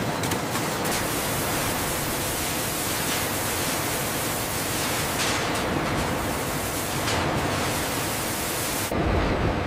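Steady, dense hiss of a row of water spray nozzles showering onto a wire mesh belt. Near the end the hiss gives way to a deeper rumble.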